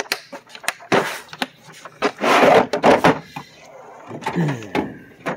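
Hard plastic tool case being clicked shut and handled, with sharp snaps and knocks. About two seconds in comes a louder scraping rush lasting about a second, a steel toolbox drawer running on its slides.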